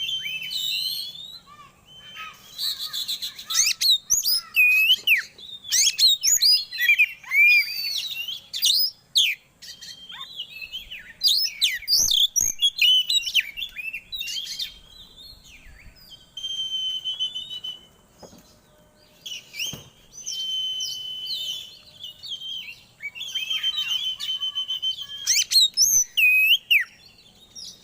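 Oriental magpie-robin (kacer) singing a loud, varied song of rapid chirps, sweeping whistles and trills, broken by short pauses. In the second half it holds several long, steady whistled notes.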